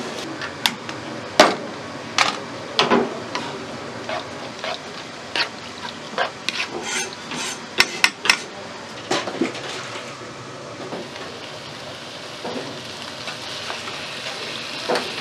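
Octopus, onion and carrot sizzling in a frying pan over a gas flame while a spatula stirs them, knocking and scraping against the pan at irregular intervals. The knocks thin out after about ten seconds as the sizzle grows brighter.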